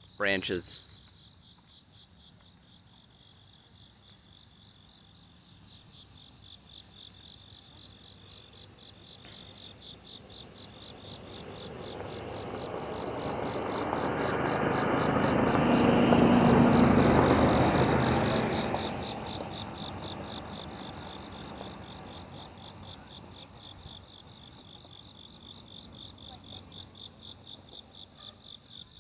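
Crickets chirring steadily in a fast, even pulse. Midway a broad rushing noise swells and fades over about ten seconds, louder than the insects.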